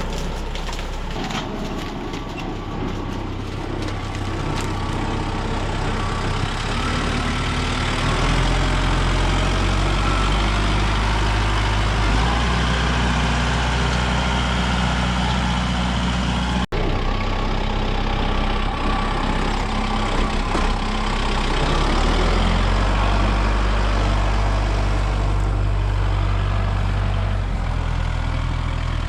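A heavy vehicle engine running, its low note stepping up and down several times as it works, with a brief break about halfway through.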